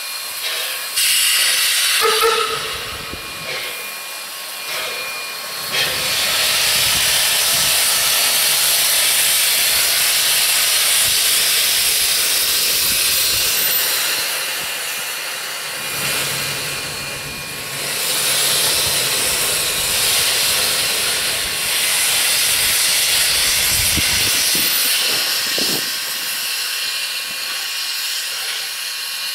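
Narrow-gauge steam locomotive NM25 blowing steam from its open cylinder drain cocks as it moves off slowly: a loud, steady hiss that swells up about six seconds in and eases briefly a few times.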